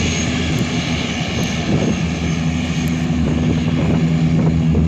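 Bombardier 415 water bomber's twin turboprop engines droning steadily as the plane skims the water, scooping a load.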